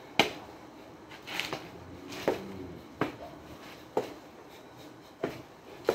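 Sharp percussive hits from a person dancing on concrete, about six of them, roughly a second apart but unevenly spaced, with a brief scraping hiss between the first two.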